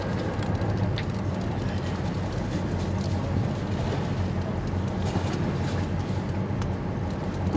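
An idling boat engine with a steady low hum, under a haze of wind and water noise.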